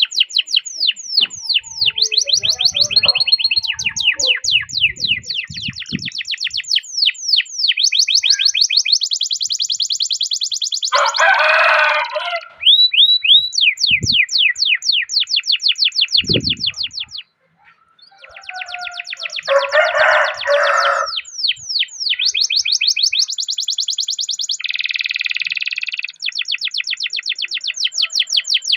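Domestic canary singing long rolling trills of rapidly repeated, downward-sweeping high notes, mixed with chirps. Two harsher buzzy phrases break in, and there is a brief pause a little past halfway.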